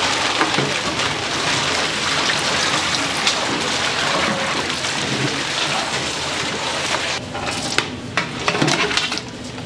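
Tap water running and splashing in a sink as pork is rinsed to wash out its blood. Steady for about seven seconds, then it breaks up into a few short splashes and knocks.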